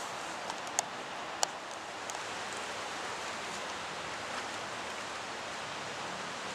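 Steady rustling hiss of wind through tall riverside reeds, with a few sharp clicks in the first second and a half.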